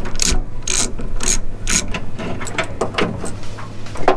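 Hand ratchet on a long 1/2-inch socket clicking in repeated back-and-forth strokes, about two a second, as it backs out a seat-mounting bolt from under a car's floor pan.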